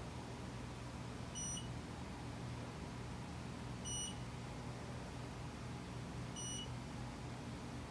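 Short high-pitched beeps, three of them about two and a half seconds apart, from a Mitutoyo Bright 916 CMM as its Renishaw TP2 touch-trigger probe takes points on a reference sphere; each beep marks a probe trigger. A steady low hum runs underneath.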